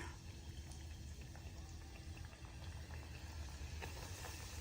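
Mangrove snapper fillets cooking in hot oil: a faint, steady bubbling sizzle with scattered small pops.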